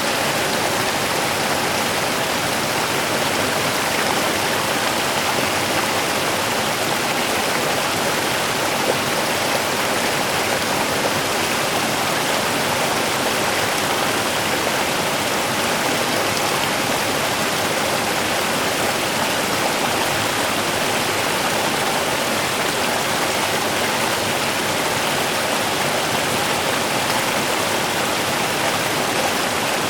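Small river running: a steady rush of flowing water over stones, even and unbroken.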